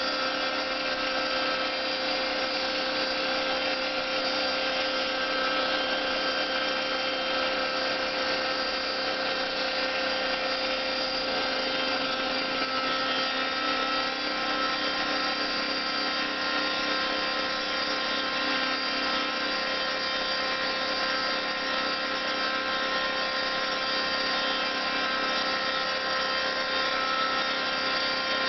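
Homemade CNC mill running: a steady machine whine holding several fixed pitches, from its spindle and stepper motors driving the axes.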